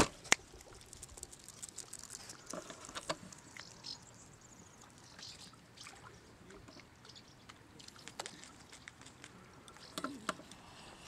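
Scattered small clicks and taps over faint outdoor ambience, with two sharp clicks right at the start.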